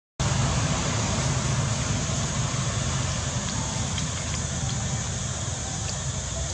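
Steady outdoor background noise, an even rushing hiss with no clear rhythm, and a few faint clicks about four seconds in.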